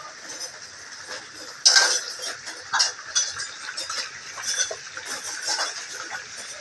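Tuna frying in oil in a pan: a steady sizzle with irregular crackling pops of spattering oil. The loudest burst comes just under two seconds in, with another about a second later.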